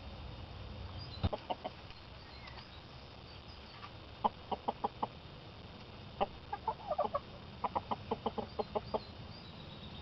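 Chickens clucking: short clucks in quick runs, a few about a second in, a run around four seconds in and a longer run from about six to nine seconds, over a steady low background noise.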